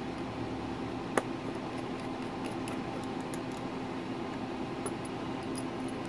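Small screwdriver working a screw into a laptop's drive caddy: a few faint metallic ticks and one sharp click about a second in, over a steady low hum.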